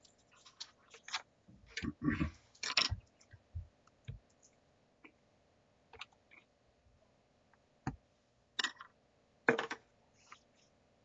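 Scattered clicks and light knocks from people handling things at a meeting table, with a busier cluster about two seconds in and a couple of sharper knocks near the end.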